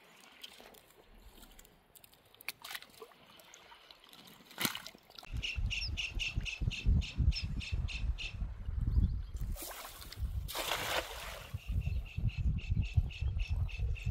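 Water splashing and trickling, with a bird calling in quick repeated notes, about four a second, in two spells from about five seconds in. A louder rush of water-like noise comes about ten seconds in.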